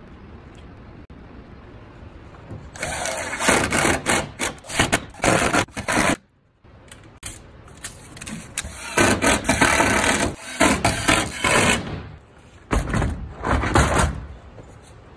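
Three stretches of loud scraping and rasping work noise with fast irregular clicks. They come from painter's tape being peeled off plastic wall mounts on a plywood wall and a plastic organizer case being set onto the mounts.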